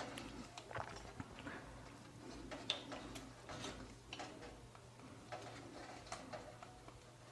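Faint, irregular small clicks and taps of a front-panel USB cable's plastic connector being handled and pushed onto a motherboard's USB header pins, over a faint steady hum.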